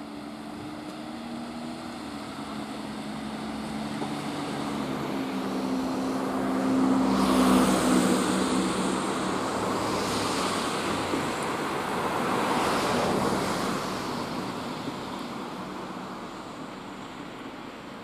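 Cars passing on a street. Engine hum and tyre noise swell to a loud pass about seven to eight seconds in, then a second vehicle goes by around thirteen seconds and the sound fades away.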